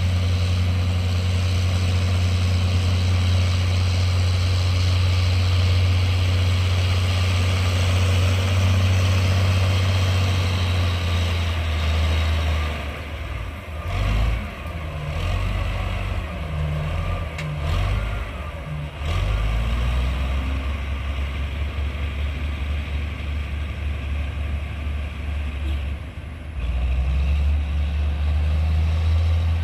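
Heavy construction machine's diesel engine running steadily, then rising and falling in pitch unevenly for several seconds around the middle, before settling back into a steady run.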